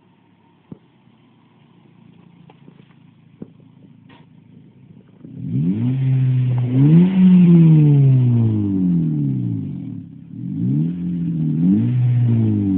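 2012 Honda Civic Si's 2.4-litre four-cylinder breathing through a generic N1-style aftermarket exhaust, heard at the tailpipe: a quiet idle for about five seconds, then two bursts of free revving, each climbing in quick blips and dropping back to idle.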